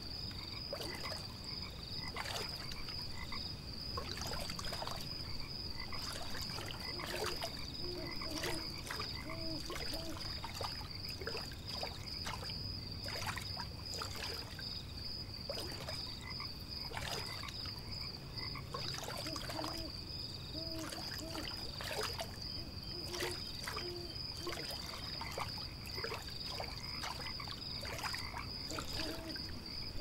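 Frogs croaking in short runs of two or three calls, over a steady high-pitched trill and light water lapping and dripping.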